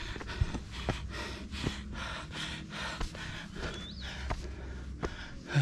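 A hiker breathing hard and fast, out of breath from climbing a steep stair trail, with quick heavy breaths about twice a second.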